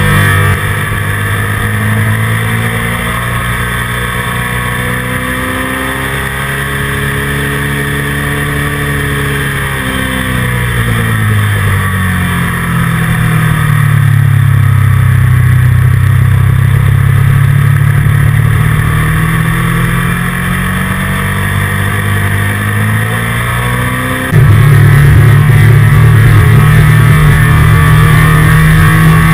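Motorcycle engine running at track speed as heard from a camera mounted on the bike, with steady wind rush. The engine note falls and then rises again in pitch around the middle, and jumps abruptly louder near the end.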